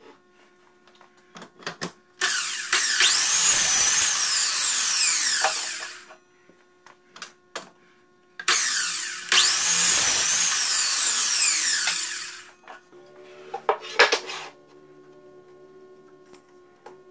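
Miter saw run twice: each time the motor whines up to speed, the blade cuts through wood and the pitch sags, then the motor winds down with a falling whine. Background music with a few knocks comes in near the end.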